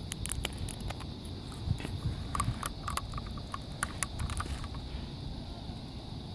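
Low steady outdoor rumble with a faint steady high hiss, and scattered sharp clicks and crackles that stop about two-thirds of the way through.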